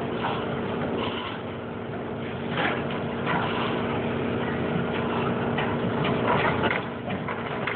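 An engine running steadily with a constant hum, with several short knocks and scrapes over it.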